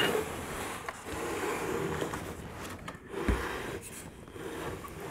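Handling noise of a mini 3D printer's metal frame, rods and cables being turned and fitted together by hand: light rustling and scraping, with one dull knock about three seconds in.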